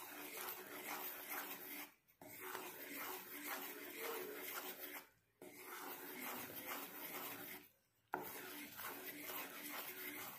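Wooden spatula scraping and stirring thick, bubbling jaggery syrup melted in ghee in a non-stick pan, the syrup close to ready. The stirring is cut off by three short silent gaps.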